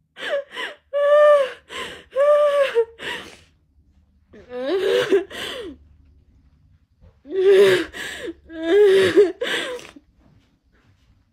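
A woman sobbing: high, wavering cries in repeated bursts broken by gasping breaths, with a short lull about six seconds in.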